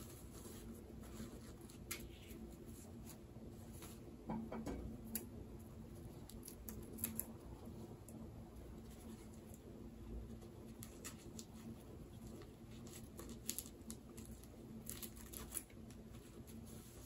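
Light rustling and scattered small clicks and crinkles from packaging being handled and unwrapped, over a low steady hum.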